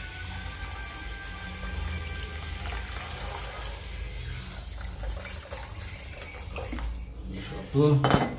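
Water poured from a plastic jug into a metal kadai of simmering curry, a steady splashing pour that stops about seven seconds in. A brief loud sound comes near the end.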